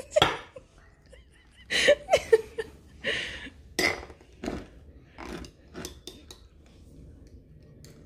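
A metal butter knife clinking and scraping against a small glass jar as apple jelly is scooped out: a string of separate light clinks and short scrapes.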